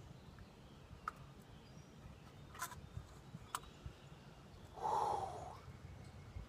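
Faint metal clicks of carburetor parts being handled as the carburetor's top is lifted off, a few seconds apart. About five seconds in, the loudest thing is a short vocal sound from the person, like a sigh.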